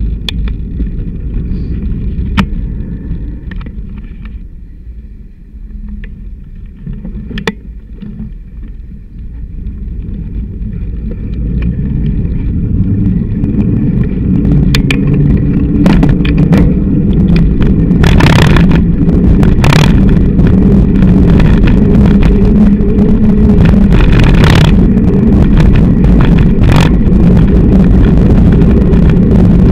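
Low rumble of wind and road vibration picked up by a camera on a bicycle's handlebar mount, growing louder about a third of the way in, with scattered knocks and rattles carried through the unpadded mount.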